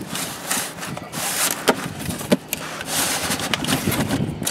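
Cardboard box and packaging being handled and pulled apart: irregular scraping, rubbing and rustling with a few sharp clicks.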